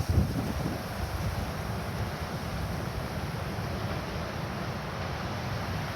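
Strong wind buffeting the microphone, hardest in the first half-second, over a steady rush of noise from small surf.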